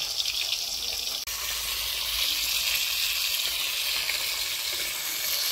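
Pieces of river fish frying in hot oil in a steel wok, a steady sizzle that grows a little louder just over a second in.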